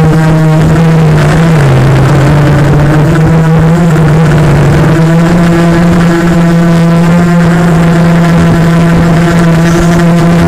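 Quadcopter motors and propellers buzzing in flight, a steady loud pitched hum that dips briefly about a second and a half in and then climbs back as the throttle changes.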